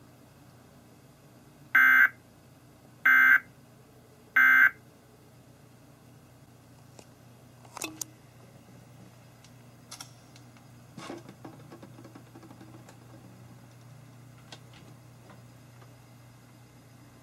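Emergency Alert System end-of-message data signal: three short, loud bursts of screechy digital data tones, about a second and a half apart, marking the end of the alert. A few faint clicks and knocks follow.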